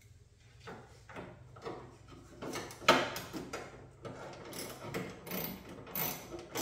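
Hand tool working a 10 mm bolt loose on a pop-up headlight bracket: a series of metallic clicks and knocks. There is one loud knock about three seconds in, and the clicks come thick and fast near the end.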